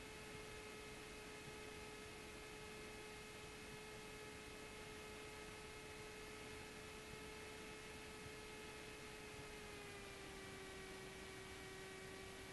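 Faint, steady hum of a Cessna 172's engine picked up through the aircraft intercom audio feed, its pitch stepping down slightly about ten seconds in as power comes back on the landing approach.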